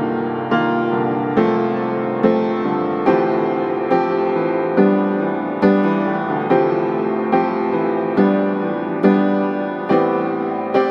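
Slow, soft piano music, a chord struck a little under once a second and left to ring.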